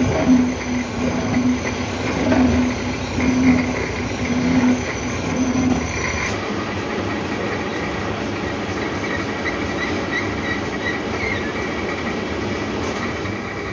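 Horizontal milling machine running, its toothed disc cutter on the arbor cutting slots for the teeth of a three-jaw clutch. For the first six seconds a hum comes and goes about once a second over the machining noise, then the sound settles into a steady run.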